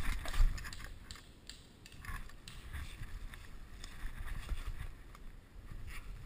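Footsteps through leaf litter and undergrowth, with branches brushing past and the player's gear and airsoft rifle rattling; the heaviest footfalls come in the first second or so, then lighter steps and scattered clicks.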